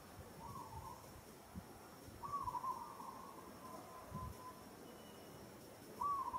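Infant macaque calling in faint, wavering high coos: three drawn-out cries, the middle one the longest, with a couple of soft low thumps between them.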